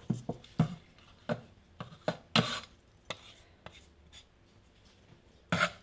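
Metal bench scraper and silicone spatula scraping and knocking on a floured wooden board while gathering sticky dough: a string of short scrapes and knocks, with longer scrapes about two and a half seconds in and near the end.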